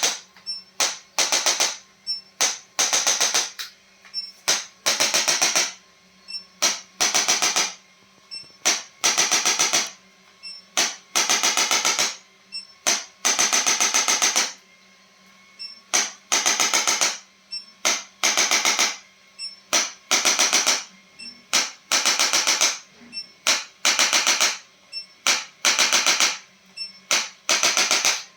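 Handheld electric percussive device run in repeated short bursts of very rapid tapping. Each burst lasts from a fraction of a second to about a second and a half, over a steady low hum.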